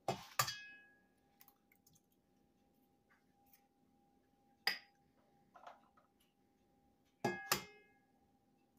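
Eggs being cracked against the rim of a stainless steel stand-mixer bowl: sharp knocks that set the metal bowl ringing, two together at the start, one alone about five seconds in and two more near the end. A faint steady hum sits under them.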